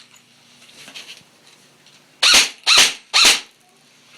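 Three single shots from a GR15 electric airsoft rifle about half a second apart, each a short loud burst.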